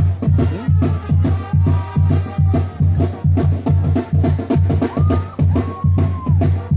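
Music with a heavy, steady drum beat, about three beats a second, over a strong bass, with a few long held notes from a melody instrument.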